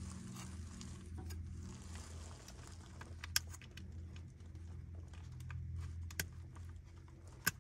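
Plastic connectors and cables being handled and pushed into the back of an aftermarket car stereo head unit: light rustling and small clicks, with three sharper clicks, over a low steady hum.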